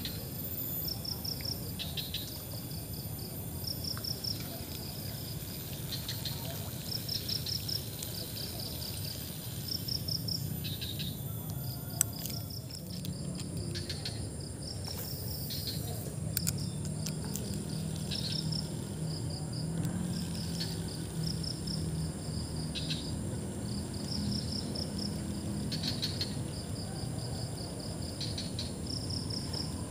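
Insects chirping in short, high-pitched pulse trains about once a second, over a steady low rumble, with a single sharp click near the middle.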